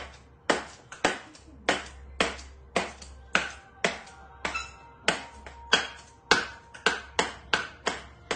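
Caique knocking a small plastic cup against a wooden floor: sharp taps about twice a second, each with a short ring.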